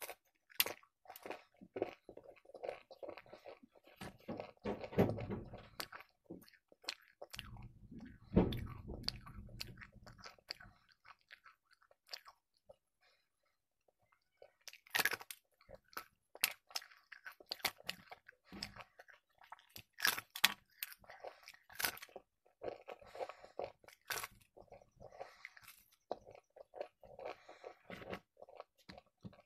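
Close-up chewing and biting of a large deep-fried puri, with many sharp crisp crackles as pieces are bitten off. There is a quiet pause about halfway, then the crackling resumes.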